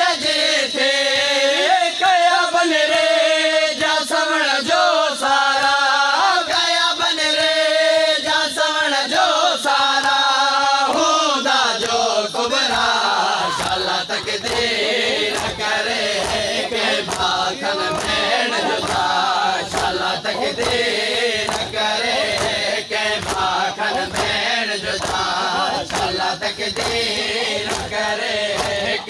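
Men chanting a Saraiki/Punjabi Muharram noha in long, held lines for about the first ten seconds. The singing then gives way to a mass of crowd voices over a running patter of short, regular strikes: mourners beating their chests in matam.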